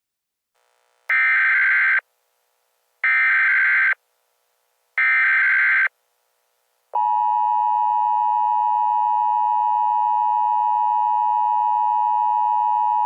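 Emergency Alert System header: three short bursts of SAME digital data tones about two seconds apart, then a steady attention tone that starts about seven seconds in. It signals that an emergency alert message is about to be read.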